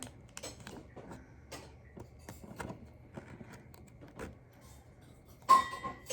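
Light clicks and taps of a trading card being worked into a hard plastic card case, with a louder brief squeaky scrape about five and a half seconds in.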